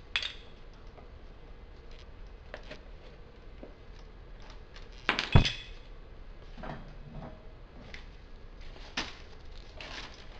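Metal parts knocking and clanking on a hydraulic press bed as a steering knuckle and wheel hub are handled, with one loud metallic bang about five seconds in.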